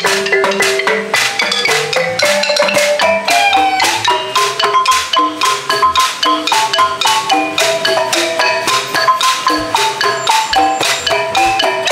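Traditional Sabah bamboo-music ensemble: a bamboo xylophone and a row of small kettle gongs (kulintangan) struck with mallets in a quick, steady rhythm of many ringing notes.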